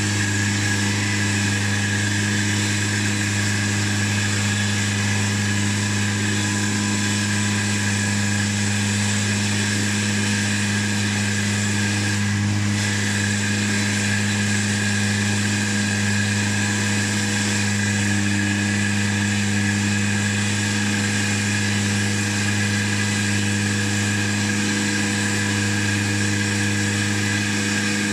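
Walk-behind road saw cutting a slot in the asphalt street: a steady engine hum with the high grinding of the blade in the pavement, running without a break.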